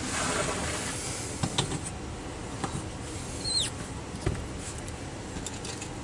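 Light handling clicks and knocks as a padlock is set into a small bench vise and clamped, with a brief high squeak about three and a half seconds in.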